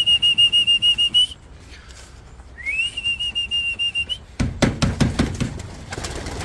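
A trilling whistle blown twice, each blast sliding up and then holding one high pitch with a fast flutter, to call racing pigeons out of the loft to fly. In the last two seconds there is a run of irregular clatters and thumps, typical of pigeons flapping as they come out.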